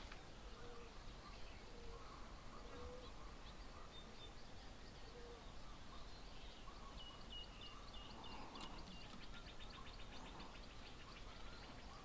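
Faint outdoor ambience with distant bird calls: a few short low notes in the first half, then a fast run of high, rapidly repeated notes about two-thirds of the way in.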